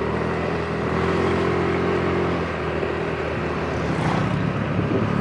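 Small motorbike engine running at a steady cruising pitch, heard from the rider's seat.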